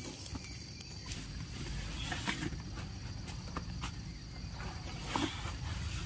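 Steady high-pitched drone of night insects such as crickets, with a few faint rustles in the grass.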